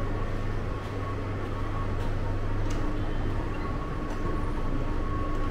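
Steady mechanical drone with a low hum and a thin high tone above it, and a light click partway through.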